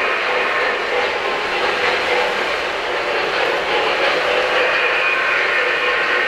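O-scale three-rail model freight train rolling along the track: a steady rumble of metal wheels on rail, with a faint hum.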